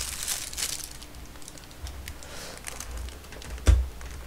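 Scattered light clicks and taps of hands handling things at a desk, with one sharp knock about three and a half seconds in.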